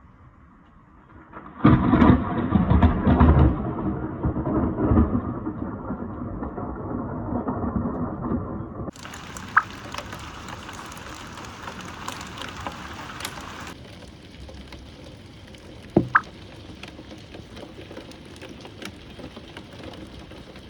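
A thunderclap breaks suddenly about two seconds in and rumbles away over several seconds. After that, steady rain hisses, with a few sharp ticks of drops.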